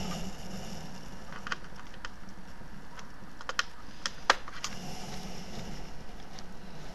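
Light, scattered clicks and taps of a small screwdriver working the screws of a laptop's hard drive case, with the loudest click a little after four seconds in, over a faint steady hum.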